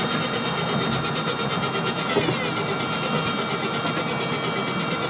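Steady road and engine noise heard inside the cabin of a car cruising on a highway, with a quick, even pulsing.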